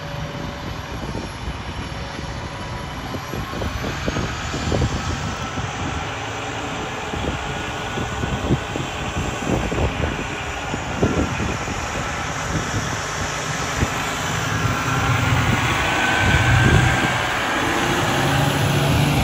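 Diesel engine of a tiller ladder fire truck running as the truck pulls out and drives past, with a faint whine that rises slowly in pitch; it grows louder over the last few seconds as the truck comes close.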